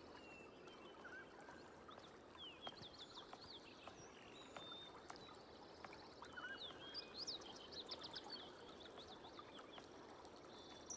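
Faint outdoor ambience of birds chirping: clusters of quick, short high chirps over a soft steady hiss.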